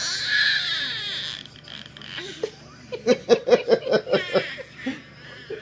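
A young child imitating a duck: a high, drawn-out squeal, then a quick run of about nine short quack-like sounds, roughly six a second.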